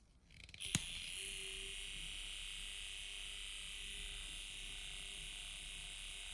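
Small handheld electric whisk switched on with a click, then running with a steady buzz, whipping cream.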